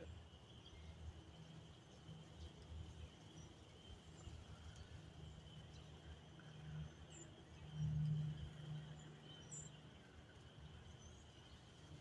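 Faint, steady high-pitched hum of a distant spring peeper chorus, with two faint high bird chirps in the second half. A low hum runs underneath and swells briefly about eight seconds in.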